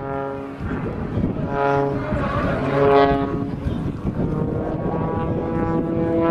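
Aerobatic biplane's piston engine and propeller droning overhead during a smoke-trailing manoeuvre. The note wavers in the first half, then rises steadily in pitch over the last couple of seconds.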